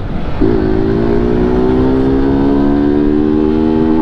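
BMW G 310 GS single-cylinder engine pulling steadily under acceleration through its inverted-hose ('mangote invertido') exhaust, the note starting about half a second in and slowly rising in pitch, over wind rumble.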